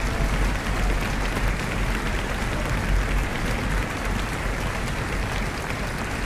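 Audience applauding: dense, steady clapping with no music.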